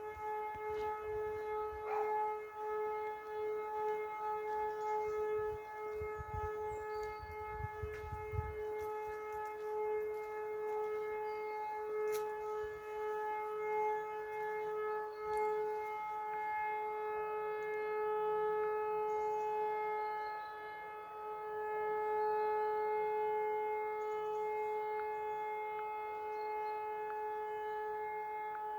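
E57 electro-mechanical civil-defence siren sounding a steady, unbroken tone, the all-clear signal, heard from about half a kilometre away; its level wavers slightly.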